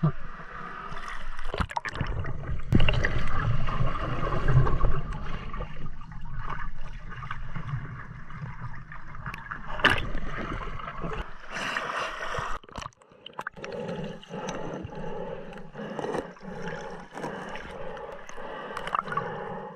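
River water gurgling and sloshing close to the microphone as snorkelers swim, with scattered knocks and clicks. The sound is heaviest and deepest in the first few seconds.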